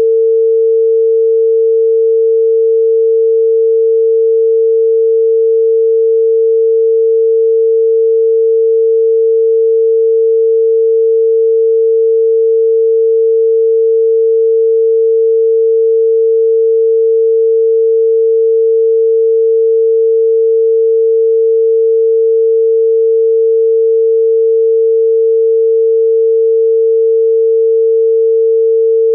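Chinese telephone dial tone: one continuous, steady 450 Hz tone with no breaks. It is the exchange's signal that the line is ready for dialling.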